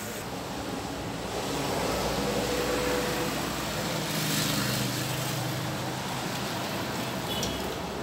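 Steady background noise with a faint low hum, a little louder in the middle and with a brief tick near the end.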